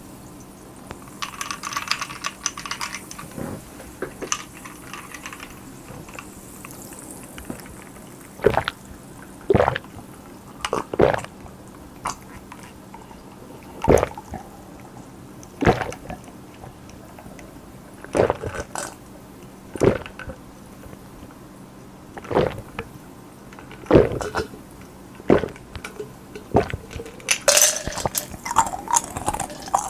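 A person gulping carbonated cherry-blossom Pepsi from an iced glass mug in one long draught: a regular run of loud swallows, one about every second and a half, starting about a quarter of the way in. Near the end, ice rattles in the emptied glass.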